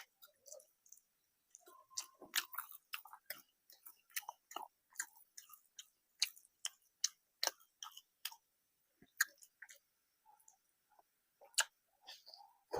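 A person chewing a mouthful of rice and curry, with short wet mouth clicks at an uneven pace, busy for several seconds and then thinning out before picking up again near the end.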